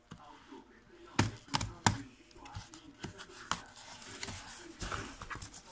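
Utility knife slicing through a paper-wrapped cardboard parcel and its tape: three sharp snaps between about one and two seconds in, then rustling and tearing of paper as the flap is pulled open.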